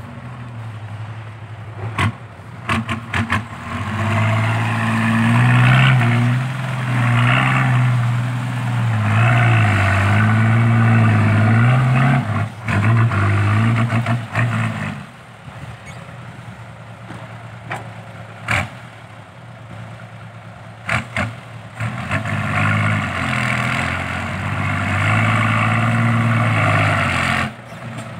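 Isuzu Deca 195 dump truck's diesel engine running through a new triple-tip side exhaust, pulling hard under a load of dirt with its note rising and falling, easing off for a few seconds in the middle, then pulling again. A few sharp knocks are heard along the way.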